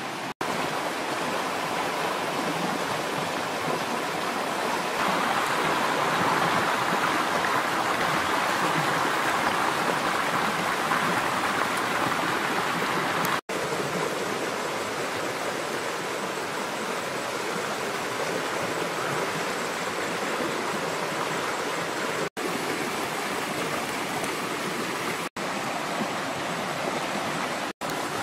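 Steady rush of running water, louder for a few seconds early on, dropping out for an instant several times.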